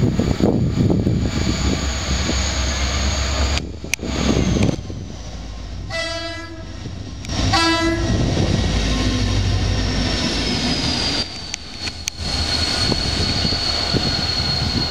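Renfe Class 333.4 diesel locomotive running light, engine rumbling as it comes through, with two horn blasts about six seconds in: one of just over a second, then a shorter one.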